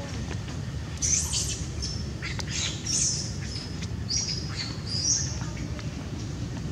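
A string of short, high-pitched squawking calls, several gliding down in pitch, between about one and five seconds in, over a steady low rumble.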